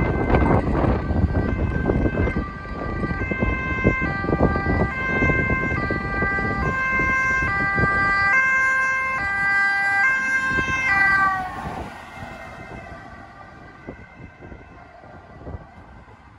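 Ambulance two-tone siren alternating between a high and a low pitch, each held about half a second, growing louder as it approaches; about 11 seconds in the pitch drops as it passes, and the siren fades as it drives away.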